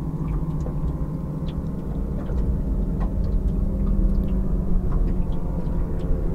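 Motorboat engines droning steadily, with faint scattered ticks over the top.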